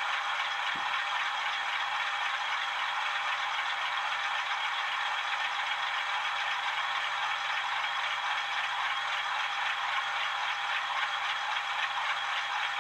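DCC sound decoders in OO gauge model diesel locomotives (Class 37, Class 50s and a Class 66) all ticking over at idle together through their small onboard speakers. The result is a steady, thin diesel idle with no deep bass.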